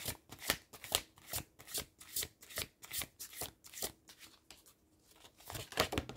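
A deck of oracle cards being shuffled by hand in short, regular strokes, about two or three a second, with a denser flurry of strokes near the end.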